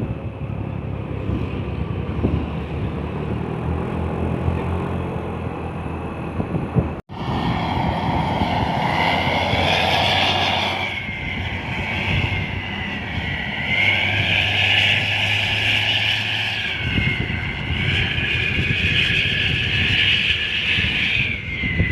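Vehicle engine and road rumble, then after a cut a bus's Pakistani-style telolet horn sounding continuously for about fourteen seconds, several high tones held together with a wavering pitch.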